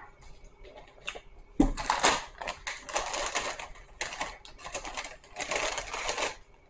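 Fast-food paper packaging being crinkled and crumpled close to the microphone: a sudden loud crackle about one and a half seconds in, then several seconds of dense irregular crackling that stops shortly before the end.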